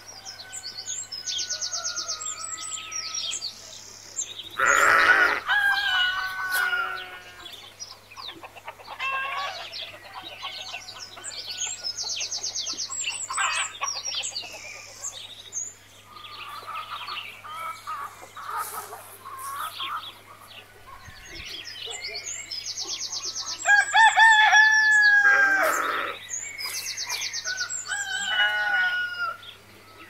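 Farmyard bird sounds: a rooster crowing twice, about five seconds in and again about two-thirds of the way through, amid chickens clucking and small birds chirping, over a faint steady low hum.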